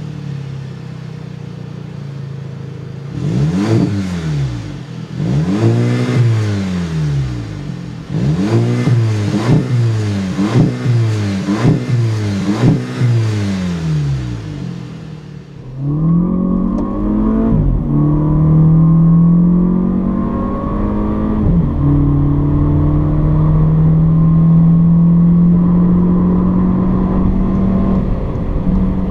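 VW Mk7 Golf 1.8T turbo four-cylinder with an AWE Tuning Track Edition straight-through cat-back exhaust on the stock downpipe, idling, then blipped through a string of about seven quick free revs. Partway through, heard from inside the cabin, the engine pulls under acceleration with two upshifts, then keeps climbing steadily in pitch.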